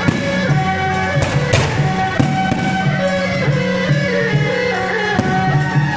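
Music with guitar and a steady drum and bass beat, with a few sharp cracks over it.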